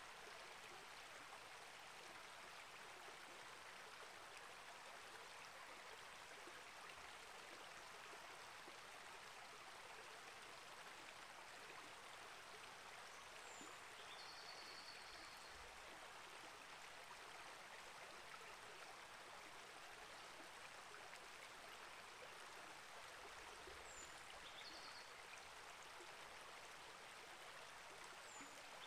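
Small rainforest creek flowing with a steady, even rush of water. A bird calls three times over it, each call a quick high falling note followed by a short held whistle.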